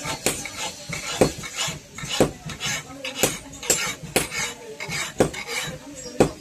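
Blacksmith's hammer striking a knife blade on an anvil, about one blow a second, each with a short metallic ring. Lighter clinks fall between the blows.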